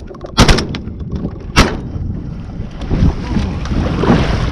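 Shotgun shots fired from a layout boat: a quick pair, then another about a second later, over steady wind and water noise.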